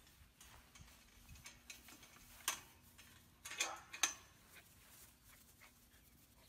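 Faint clicks and a short rattle from a wire-panel fence gate being opened, the sharpest click about four seconds in.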